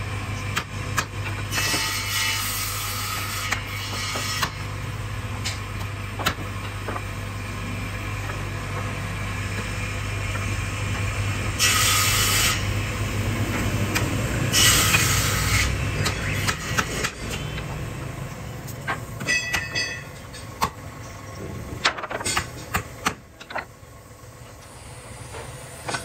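Hammer knocking now and then on wooden planks, over a steady low machine hum that stops about two-thirds of the way through. Several loud bursts of hiss come and go, near the start and twice around the middle.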